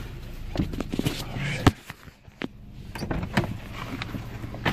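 Car cabin sounds: a car's engine running steadily, then a single sharp click about a second and a half in, after which the engine hum drops away. Scattered small knocks and handling noises follow.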